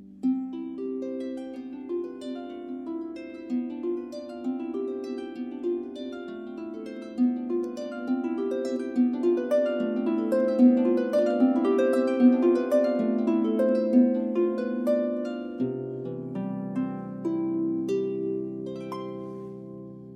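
Harp playing a flowing melody over rippling plucked notes that ring on. A deep bass note sounds about three-quarters of the way through, and the playing softens near the end.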